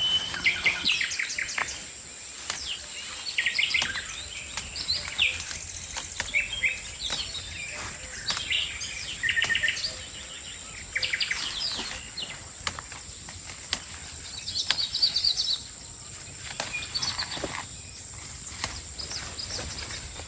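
Chicks peeping in short high bursts, one cluster after another, over a steady high-pitched whine with scattered light clicks.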